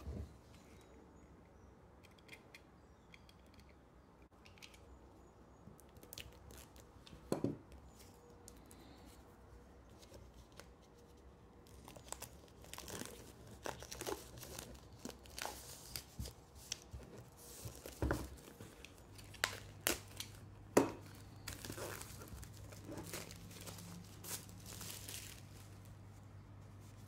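Clear plastic shrink-wrap being torn and peeled off a Blu-ray case: scattered crinkling and tearing that gets busier about halfway through, with a few sharp clicks.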